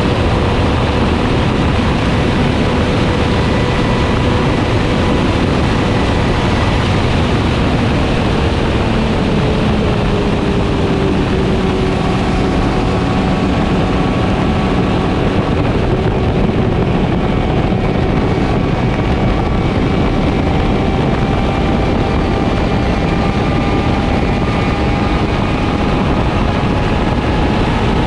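Motorcycle engine at highway cruising speed under heavy wind rush on the microphone. The engine note drops a little about ten seconds in, then climbs slowly through the second half.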